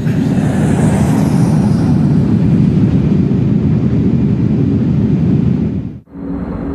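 Loud rushing roar of an airliner plunging in a steep dive, a dramatized sound effect. It surges in and holds, then cuts off abruptly about six seconds in, giving way to a steadier, quieter hum.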